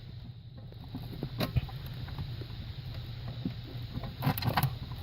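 Scattered light clicks and taps from hands fitting a nut and the main relay's bracket under a car dashboard, with a cluster of them about four seconds in, over a steady low hum.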